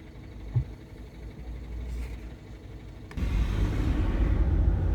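Car engine and road rumble heard from inside the car, low and steady, with a brief knock about half a second in. About three seconds in it turns suddenly louder.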